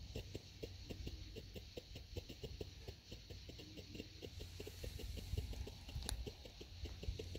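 Emoji Fountain firework burning out: faint, irregular ticking and crackling, several clicks a second, with one sharper crack about six seconds in.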